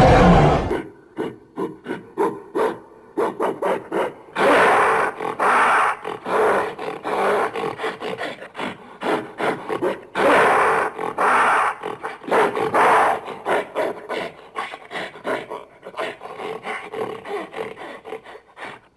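Gorilla vocalizing: a loud, drawn-out roar cuts off under a second in, followed by a long irregular string of short grunts and huffs, some in quick runs.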